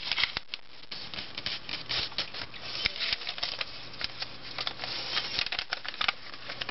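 A sheet of paper rustling and crinkling as it is folded and creased by hand into a paper boat, with many short crackles.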